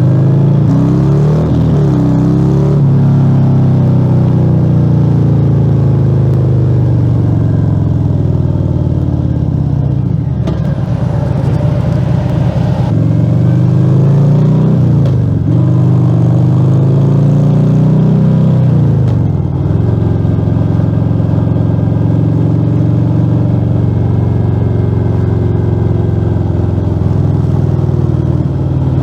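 Harley-Davidson Fat Bob 114's Milwaukee-Eight 114 V-twin running loud through a Rinehart slip-on exhaust with the dB killers removed, under way. Its pitch climbs under throttle and drops sharply at each gear change, several times.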